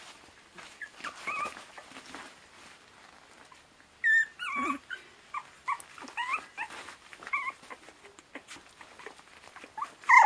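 Border terrier puppies, about 25 days old, squeaking and whimpering in short high-pitched yips while play-wrestling. After a few seconds of quiet scuffling, the yips come thick and fast from about four seconds in, the loudest near the start of that stretch and again at the end.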